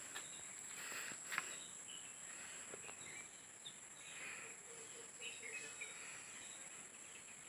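Faint outdoor ambience: a steady high-pitched insect drone with scattered short, distant bird chirps and calls.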